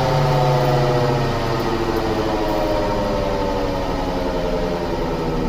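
Volkswagen Saveiro G6 driving with noisy wheel bearings: a steady drone that slowly falls in pitch, as heard from the moving car.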